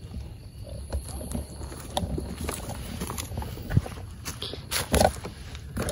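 Footsteps crunching irregularly through undergrowth, with a low rumble on the phone's microphone.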